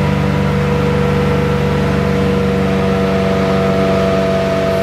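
Vacuum truck's engine and vacuum pump running steadily while the suction hose draws dirty water out of a floor pit, with a steady rushing noise under the engine drone.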